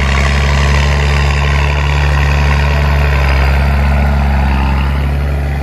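John Deere 7810 tractor's six-cylinder diesel engine running steadily under load while it pulls a planter across the field, with a deep, even hum.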